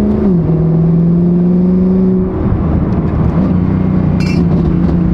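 Mercedes-AMG C63 (W204) 6.2-litre V8, catless with headers, under a full-throttle pull with its Valvetronic exhaust valves closed, so the tone stays muted. Its pitch climbs, drops suddenly about a third of a second in as it shifts up, and pulls on. About two seconds in the tone breaks up, then settles to a steady drone.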